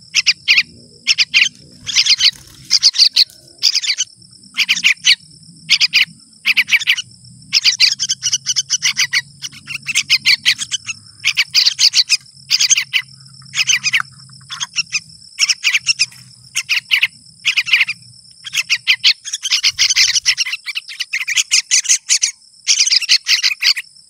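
Two yellow-vented bulbul fledglings giving food-begging calls: bursts of rapid, high chirping about once a second, running together into longer strings near the end. A steady high insect drone sounds underneath.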